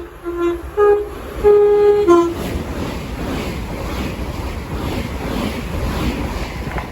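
Two-tone train horn sounding several short notes that alternate between a lower and a higher pitch, with one longer high note near the end of the run. It is followed by the steady rush of the train passing through the station.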